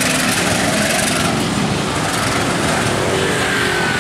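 KAI CC 201 diesel-electric locomotive running as it approaches along the track, a steady loud engine and rail noise. A faint high tone slides slightly downward near the end.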